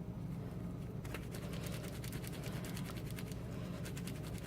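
Dried loofah sponge being trimmed, its stiff fibres snapping and crackling as many quick small clicks from about a second in.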